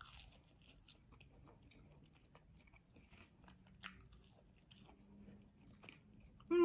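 Close-up chewing of a fried smiley-face potato: soft bites and small crunchy clicks of a crisp fried coating, at a low level. A short vocal sound comes right at the end.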